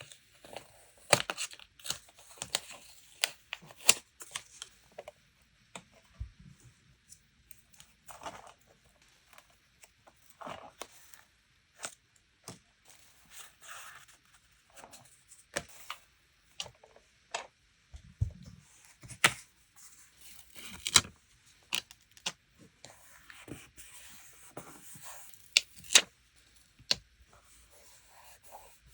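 Close-up paper crafting sounds: irregular crisp rustles, tearing and light taps as paper, stickers and tape are handled for journal decorating, with a couple of soft low thumps.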